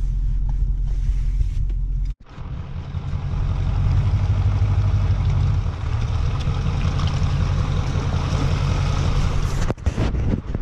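Lifted Power Stroke diesel pickup's engine running steadily with a deep rumble, broken by a brief cut about two seconds in and again near the end.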